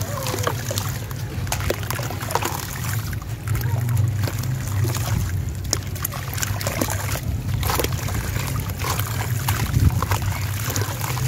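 A crumbly sand-cement and charcoal block being broken apart by hand, with many short crackles as grit and chunks fall into shallow water in a plastic tub. A steady low rumble runs underneath.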